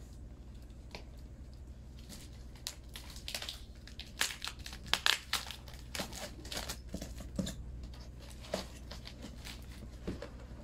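Packing tape being picked at and peeled off a cardboard box: irregular scratches, crinkles and short tearing rips, busiest in the middle, over a faint steady low hum.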